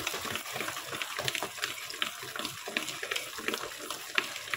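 Thick, coarsely ground green moong dal batter being beaten by hand in a stainless steel bowl: irregular wet slaps and scrapes, several a second, as the batter is whipped to make it light and fluffy.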